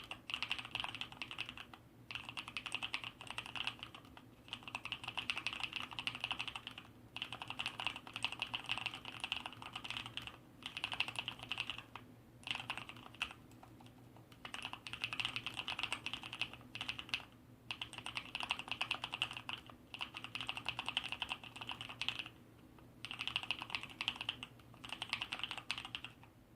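Rapid typing on an ABKO Hacker K680 mechanical keyboard with Kailh Red linear switches, its sliders and stabilizers lubed and its case sound-dampened. The keystrokes come in fast runs of a second or few, broken by short pauses.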